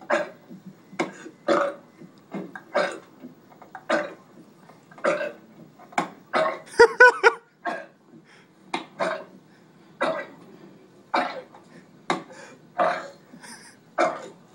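A man burping over and over, short burps coming about one or two a second, with a louder, longer stretch about seven seconds in.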